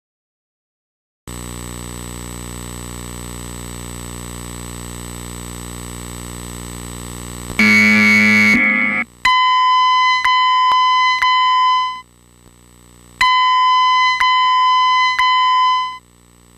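Fire alarm voice-evacuation speaker. A steady electrical hum comes on about a second in, a loud harsh burst follows near the eighth second, and then come two electronic alert tones, each about three seconds long with a short gap between them. These are the tones that lead into the recorded evacuation message.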